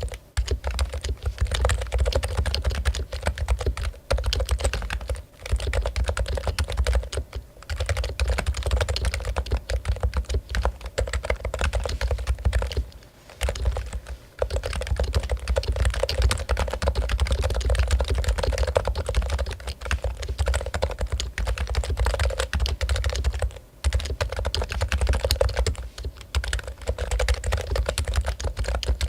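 Continuous fast typing on a Topre Realforce keyboard with its electrostatic capacitive rubber-dome switches: a dense run of keystrokes, broken by a few short pauses.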